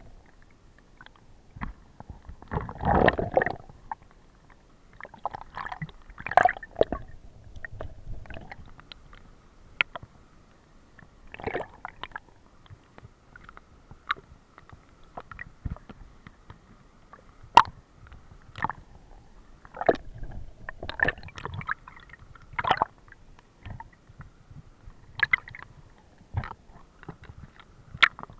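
Stream water heard through an underwater camera: muffled gurgling and rushing, broken by irregular sharp knocks and short thumps.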